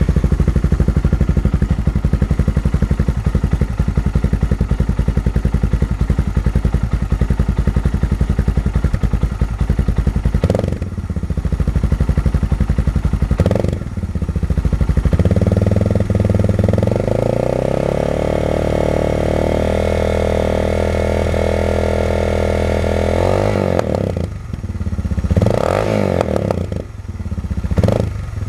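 Suzuki DR650's single-cylinder engine idling just after starting, its speed and note shifting several times, then holding steadier from about halfway, with a couple of short surges near the end.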